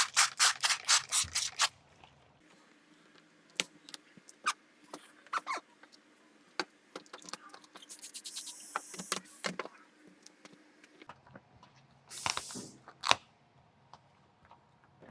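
Trigger spray bottle of PPF slip solution pumped rapidly, about five squirts a second for the first two seconds, then scattered light taps and handling of the film, with a couple of short hissing sprays later on.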